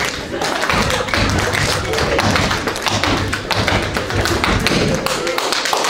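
Tap shoes striking the floor in a rapid, dense run of taps and heavier stamps during a tap-dance routine.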